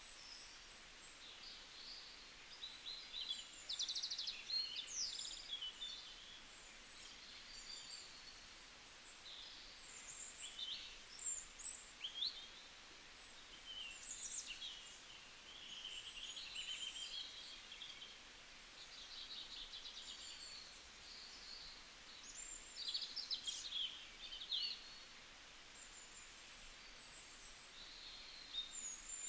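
Several small birds chirping and trilling in a bamboo forest, with short high calls, quick rapid trills and sweeping notes overlapping one another over a faint steady hiss.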